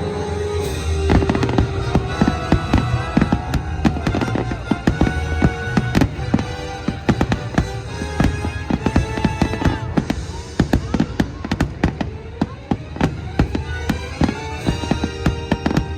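Fireworks bursting in dense, rapid bangs, one after another, over orchestral show music.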